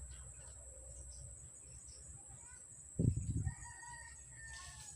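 A rooster crows once in the background near the end, a held call lasting a little over a second. Just before it, a single loud dull thump, the loudest sound here.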